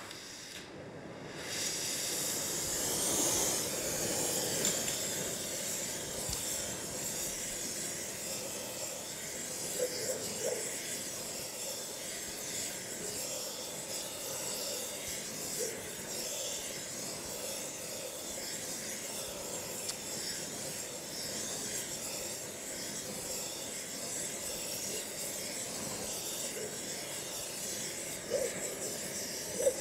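Oxy-propane torch flame hissing steadily as it preheats a cast iron casting, growing louder about two seconds in.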